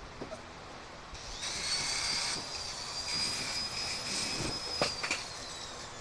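Electric angle grinder switched on about a second in, spinning up to a high steady whine, with rough grinding noise in two spells. It is switched off near the end and the whine falls as the disc winds down, with a couple of sharp knocks.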